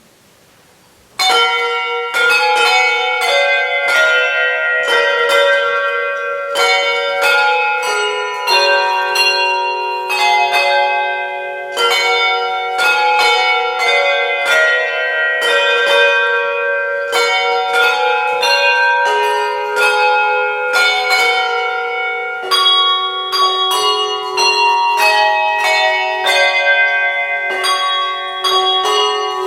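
Handbells playing a carol tune: a quick run of struck bell notes that ring on and overlap, with lower notes held beneath. It starts about a second in.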